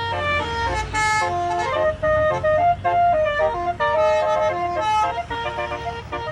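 TCI basuri telolet horn, a multi-trumpet melody horn, playing a fast warbling tune of short stepped notes, often two or three sounding together.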